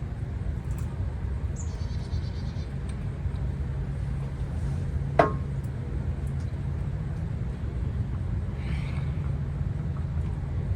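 A single sharp metallic clink of a utensil, about five seconds in, with a brief ring, as the cooked steak is cut and checked. It sits over a steady low rumble, with faint bird chirps twice.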